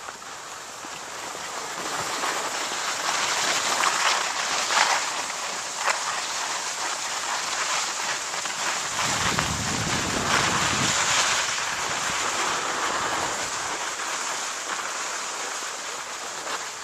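Steady hiss and scrape of skis sliding on snow, with a gust of wind buffeting the microphone about halfway through.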